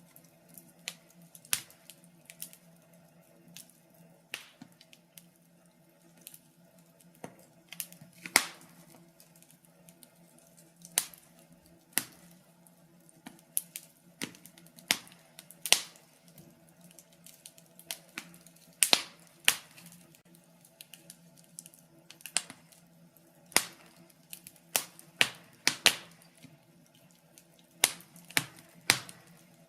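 Wood fire in a fireplace crackling: irregular sharp pops and snaps, a few every few seconds, some loud and some faint, over a faint steady hum.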